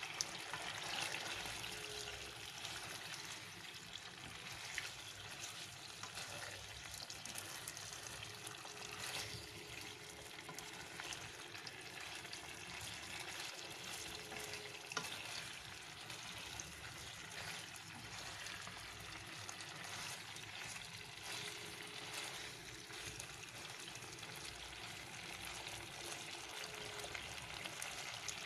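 Chicken wings sizzling steadily in hot oil in a nonstick frying pan, with a few sharp taps as wooden chopsticks turn them against the pan.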